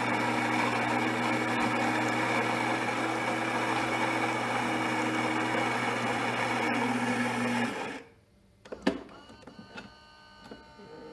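Gaggia Brera super-automatic espresso machine running its coffee cycle: a steady mechanical buzz with a low hum for about eight seconds, which then stops suddenly, followed by a faint click. A foam pad now wedges the side panel tight against the inner plastic to stop it rattling, and the sound is more muffled.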